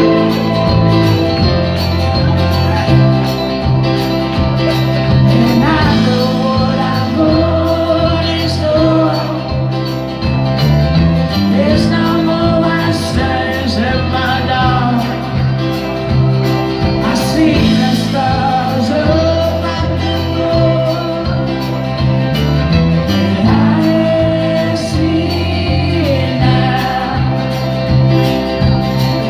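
Live folk band playing through a PA: strummed acoustic guitar, electric guitar, bass, drums and electric keyboard, with a steady drum beat and sustained melody lines, in a passage where no words are sung.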